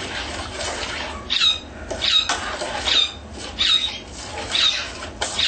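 Spoon stirring a mixture around a ceramic bowl, scraping the bowl in a steady rhythm of short squeaky strokes, about one every three-quarters of a second, to dissolve the gravy ingredients.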